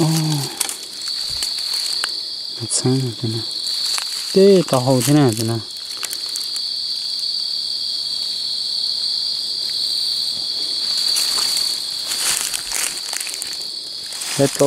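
Night insects trilling steadily on one high, unbroken pitch. A man's voice breaks in briefly twice, about three and five seconds in.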